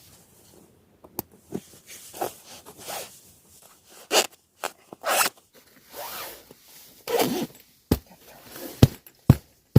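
A zipper pulled in several short, uneven strokes, with a few sharp clicks near the end.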